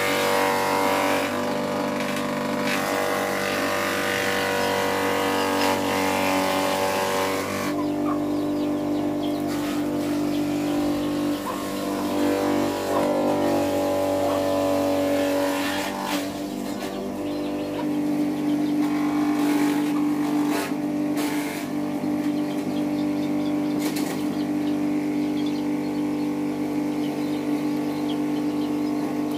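A motor running with a steady hum whose pitch and tone shift about 8 seconds and again about 16 seconds in.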